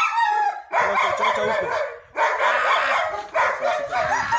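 German Shepherd guard dog barking rapidly and continuously at a man provoking it with a stick, a guarding response, with a short break about two seconds in.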